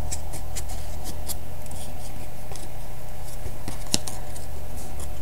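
Trading cards being handled and slid against each other, giving many small clicks and rustles with one sharper click about four seconds in, over a steady low electrical hum.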